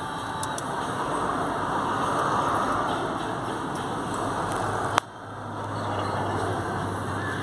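Steady road and engine noise of a moving car, heard from inside the cabin. About five seconds in there is a single sharp click, after which the noise drops suddenly and then builds back up.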